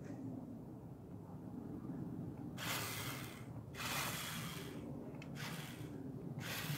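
New Bright Race Cam F-150 remote-control toy truck driving along a concrete sidewalk, its small electric motor and gears whirring in about four short spurts, each under a second, beginning about two and a half seconds in, over a low rumble.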